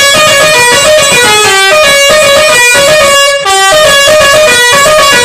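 Basuri melodic "telolet" bus horn playing a tune, loud, one held note after another, with a brief break about three and a half seconds in.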